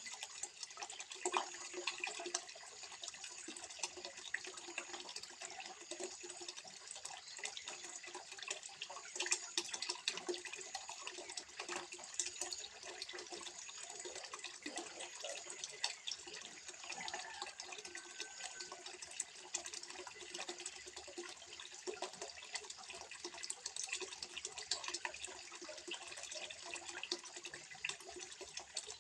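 Water trickling steadily into a small fish pond, with many small irregular splashes and drips.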